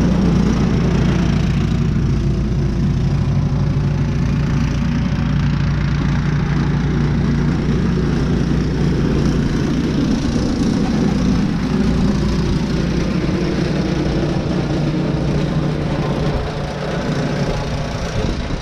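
A vehicle engine running steadily, easing off somewhat about two seconds before the end.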